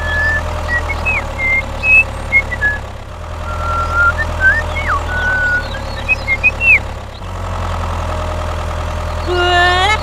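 Tractor engine idling with a steady low rumble and an even knocking rhythm, its sound shifting slightly about three and seven seconds in. Short, high bird chirps sound over it for most of the first seven seconds.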